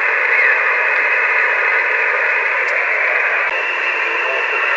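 Amateur radio receiver hissing with steady band noise, cut off sharply above and below the voice range by the receiver's narrow passband. A weak station calling is buried in the noise, with a faint wavering trace near the end.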